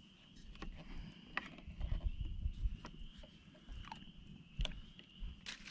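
Light clicks and taps of plates and utensils being handled on a picnic table, over a faint steady high-pitched chorus of distant calling animals.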